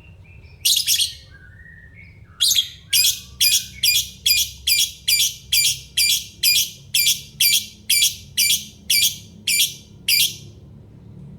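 A parrot screeching repeatedly. There is one call near the start and a few soft whistles, then a long, even series of loud, harsh screeches at about two a second, which stops about ten seconds in.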